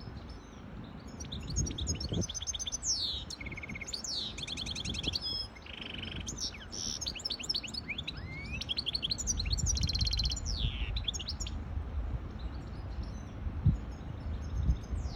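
Goldfinch hybrid singing a long, varied song of rapid trills, buzzy repeated notes and quick down-sweeping whistles, starting about a second in and stopping a few seconds before the end, over a low background rumble.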